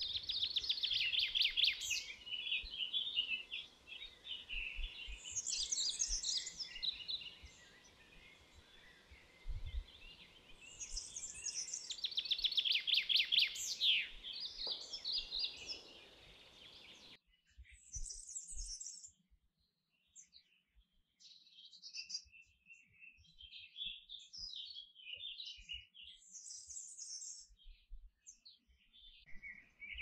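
Domestic canary singing: fast rolling trills and warbled phrases, with two long trill runs at the start and again about twelve seconds in. From about seventeen seconds the song gives way to sparser, high twittering chirps over a much quieter background.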